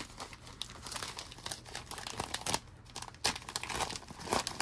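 Packaging of craft embroidery kits crinkling and rustling as it is handled, in irregular crackles with a few louder snaps in the second half.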